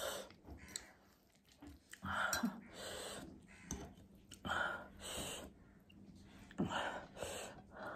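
Close-miked eating sounds from a plate of ramen noodles, omelette and momos: four spells of wet chewing and slurping mouth noise, about a second each, with a few sharp clicks of a fork and spoon against the plate.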